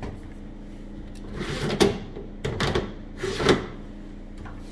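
Three short knocks or clunks, about a second apart, over a faint steady low hum.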